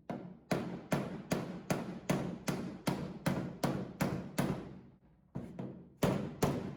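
Flat-faced hammer striking sheet steel over a dolly to knock out a crease: a steady run of ringing blows, about two or three a second, with a brief pause about five seconds in before the hammering resumes.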